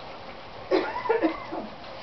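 An animal calling: a short run of quick, pitched cries or barks lasting about a second, starting just under a second in.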